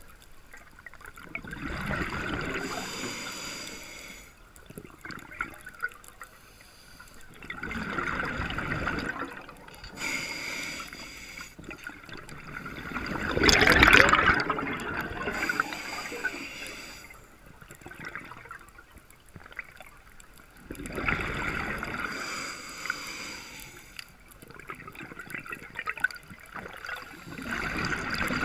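Scuba regulator exhaust bubbles from a diver's breathing, heard underwater: a bubbling rush swells and fades about every six seconds, five times, with the loudest near the middle.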